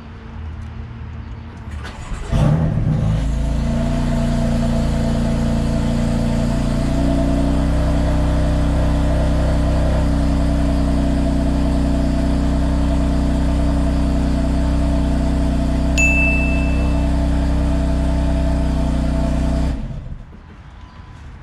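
BMW F80 M3's twin-turbo inline-six starting about two seconds in, idling steadily, then switching off a couple of seconds before the end. A short high beep sounds during the idle.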